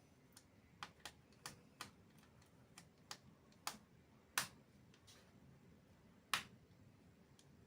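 Sharp plastic clicks as the bottom cover of an MSI Bravo 15 laptop is pried open and its clips come loose. About a dozen clicks come at uneven intervals, the loudest about four and a half and six and a half seconds in.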